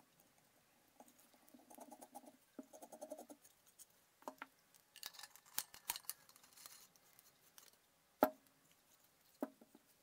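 Faint handling sounds of a small DC-motor belt-drive mechanism being put together by hand: light rubbing and scraping of the toothed belt and plywood parts, scattered small clicks, and one sharper knock about eight seconds in.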